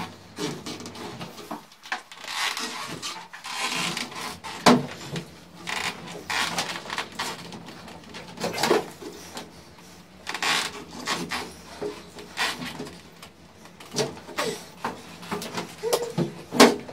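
An arm-wrestling bout at a padded table: irregular knocks, creaks and rubbing from the table and pegs as the two wrestlers strain, with a few short grunts and breaths.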